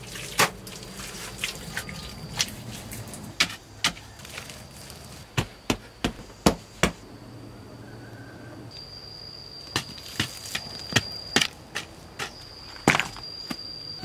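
Rocks knocking and clacking against each other as they are set by hand into a stone-lined trench, in sharp, irregular knocks. Behind them a thin, steady high-pitched tone comes and goes.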